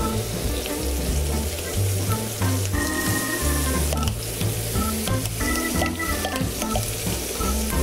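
Veal shanks sizzling as they fry in oil in a pan while handfuls of chopped soffritto vegetables are dropped in. Background music with a stepping bass line plays under the sizzle.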